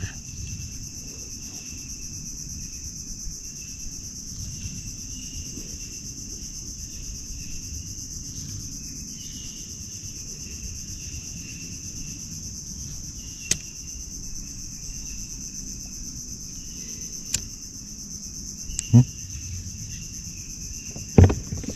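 Steady, high-pitched chorus of insects, over a low rumble of wind and water noise. A few sharp clicks come about two thirds of the way through, and short low knocks follow near the end.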